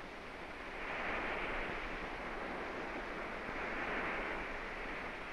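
Sea surf washing onto the beach: a steady rushing hiss that swells about a second in.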